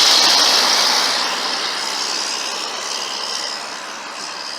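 Rushing noise of a passing vehicle, loudest at the start and fading steadily as it moves away.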